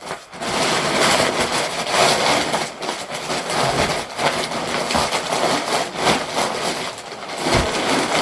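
Plastic parcel packaging crinkling and rustling as it is handled and opened, in uneven, continuous crackles.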